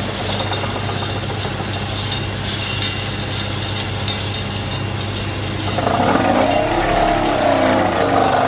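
CZM EK200 piling rig with its vibro flot running, a steady machine hum. About six seconds in, a wavering whine that rises and falls in pitch joins as the probe is lowered toward the stone-filled hole.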